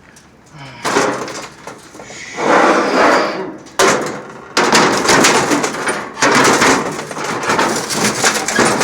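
Metal parts of a grill being knocked and rattled during hand repair work: a short burst about a second in, a louder spell in the middle, then a dense run of knocking and clattering from about halfway.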